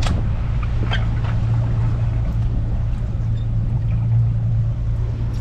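Motorboat engine running steadily underway: a low, even drone, with a couple of light knocks near the start.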